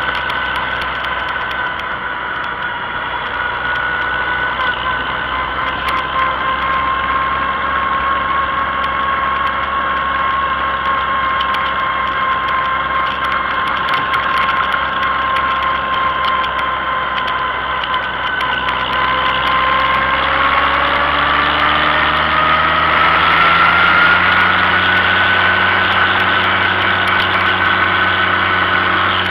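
Tractor engine running steadily under way, with a steady whine; about two-thirds of the way through, the pitch climbs as the engine speeds up, then holds at the higher speed.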